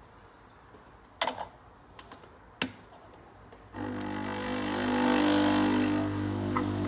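A few sharp clicks and knocks, then a capsule espresso machine's pump starts about four seconds in with a steady buzzing hum and a hiss as the coffee brews through the capsule.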